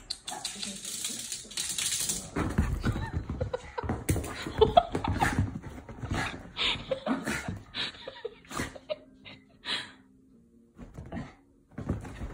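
A poodle and a cat play-fighting: irregular scuffling and scrabbling on furniture, mixed with short dog vocal sounds, dying down for a moment a little before the end.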